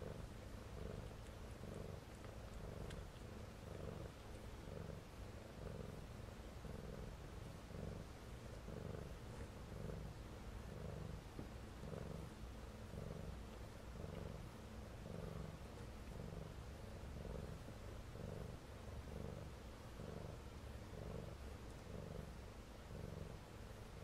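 Domestic cat purring steadily as a mother cat nurses her kittens, an even pulsing hum of about one and a half pulses a second.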